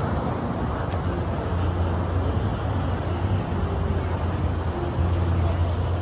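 Wind buffeting the microphone in a low, uneven rumble over a steady open-air rush, with faint distant shouts from people on the beach.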